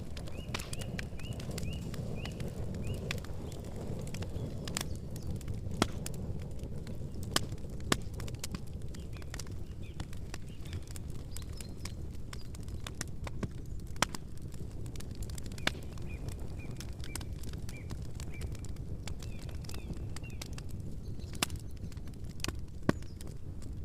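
Wood campfire burning with a steady low rumble and scattered sharp crackles and pops, a handful of them louder than the rest.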